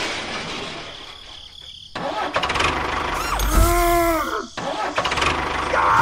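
Engine running, likely a dubbed tractor engine effect. It fades over the first two seconds and comes back suddenly at two seconds with a low rumble. A short pitched sound rises and falls about three and a half seconds in.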